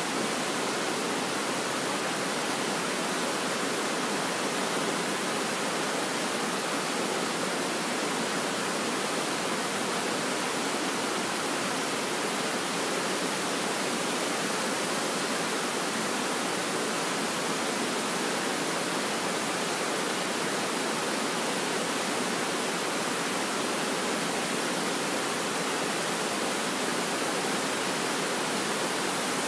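Steady rush of a fast, shallow river running over rocks in white-water rapids, an even hiss with no breaks.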